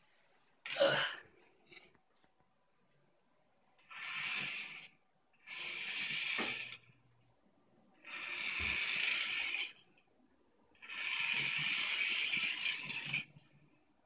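A small toy RC car's electric motor and gears whirring in four short spurts of a second or two each, with pauses between, as it is driven in bursts. A sharp knock about a second in.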